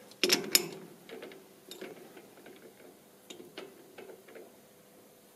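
Chuck key turning in a lathe chuck, closing the jaws onto a small flanged nut: a quick burst of metal clicks and knocks at the start, then scattered light ticks.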